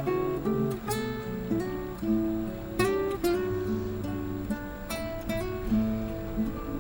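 Acoustic guitar music: plucked notes and chords following one another steadily.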